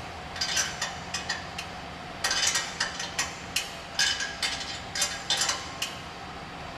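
Hand tools working metal fittings on a car's exhaust system: an irregular run of short metallic clicks and clinks that stops about six seconds in, over a steady low hum.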